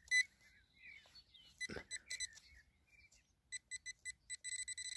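A metal-detecting pinpointer probe beeping in short, high pips that quicken from about three and a half seconds in and run together into a steady tone at the end, as the tip closes on a metal target in the soil. There is a soft scrape of soil about two seconds in.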